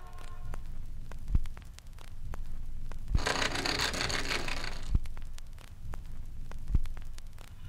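Suspense sound design: a low rumbling drone with slow heavy thuds about every two seconds and faint crackling clicks, and a harsh rasping hiss that swells in about three seconds in and cuts off about two seconds later.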